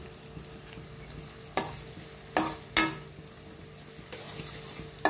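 Steel skimmer spoon stirring onions and green chillies frying in oil in a stainless steel kadai: three sharp metal knocks against the pan a second or so apart, then a short stretch of scraping with sizzling, and another knock at the end.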